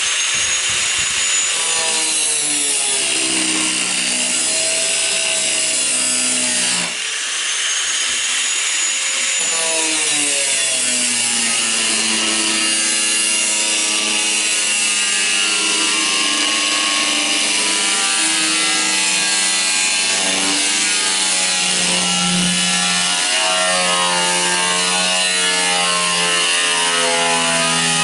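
Corded electric power tool cutting through a sheet-steel patch panel, running steadily with several tones that shift in pitch as the metal vibrates. It eases off briefly about seven seconds in, then cuts on.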